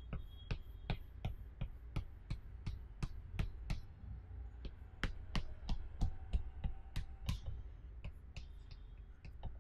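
Chalk tapping against a blackboard in short dashes, about three strokes a second, as a dotted circle is drawn. There is a brief pause about four seconds in, and the strokes grow fainter near the end.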